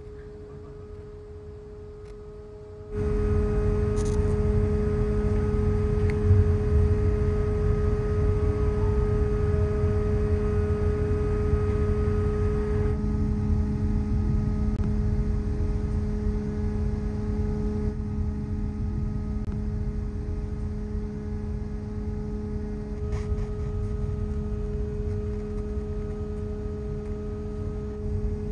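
Ferry machinery humming steadily: a low rumble with several fixed tones, starting abruptly about three seconds in, the higher tone dropping away about halfway through.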